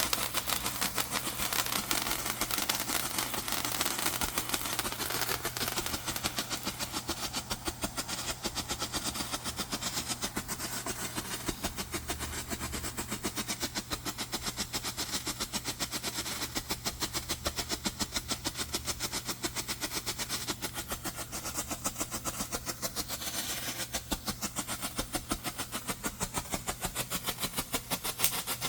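Fireworks going off in a rapid, unbroken run of small sharp bangs, many a second, like a long firecracker string crackling.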